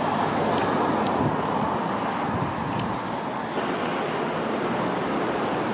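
Steady rushing outdoor city noise with a few faint clicks.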